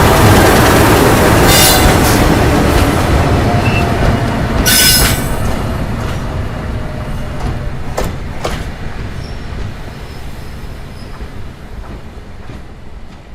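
Train slowing into a station: wheels rumbling and clacking on the rails, with high wheel squeals in the first few seconds, then the noise dying steadily away as it comes to a stop, with a couple of sharp knocks along the way.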